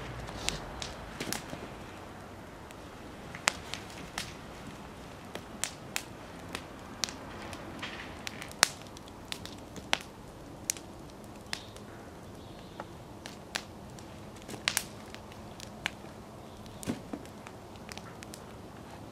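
Wood fire in a fire bowl crackling, with sharp pops at irregular intervals, one or two a second, over a low steady hiss.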